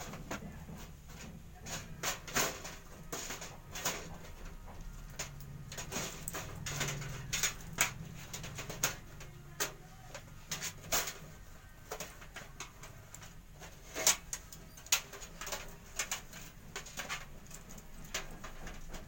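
Irregular clicks and knocks of a computer power supply unit being handled and fitted back into a desktop system unit's metal case.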